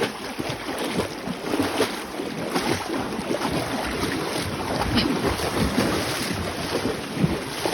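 Rushing river water, with wind buffeting the microphone.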